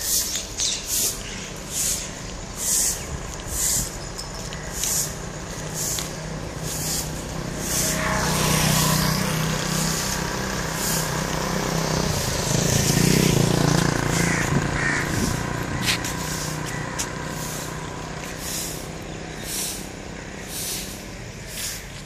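A motor vehicle passing on a wet road, its sound swelling from about eight seconds in and fading after about fifteen, over a steady low rumble. Short swishes recur about once a second throughout.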